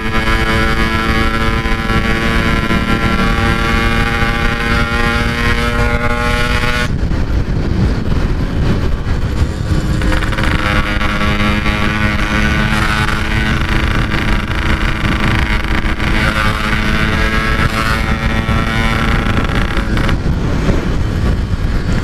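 Yamaha RX-King two-stroke single-cylinder motorcycle with a stock-style Packing Power aftermarket exhaust, running at a steady pitch while cruising. About seven seconds in the engine note turns rough and noisy for a few seconds, then settles back to a steady pitch.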